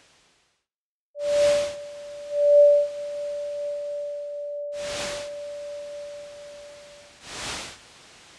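Electronic sine tone generated live from a colour sensor reading blue paint and played on a delay loop. It holds one steady pitch, comes in about a second in, swells twice, holds, then fades out near the end. Three short swishes of noise fall about a second in, midway, and near the end.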